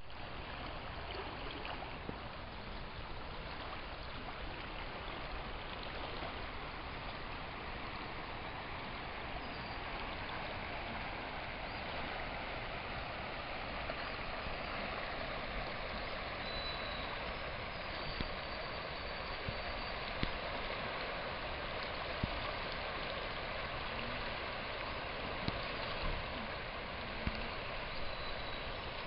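Steady rushing of a swollen, fast-flowing river in flood, with a few small knocks near the end.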